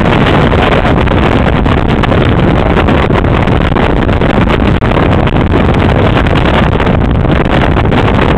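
Steady, loud rush of wind and road noise in a moving vehicle, with wind buffeting the microphone.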